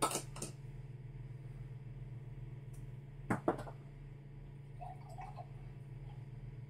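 Glass bottles and a wine glass being handled, with a few sharp clinks right at the start and two more about three and a half seconds in, then a faint trickle of liquid poured from a bottle into the glass, over a steady low hum.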